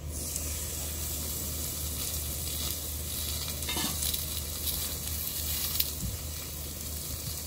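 Thick slab of pork belly sizzling on a hot griddle pan: the sizzle starts suddenly as the meat is laid down, then carries on steadily.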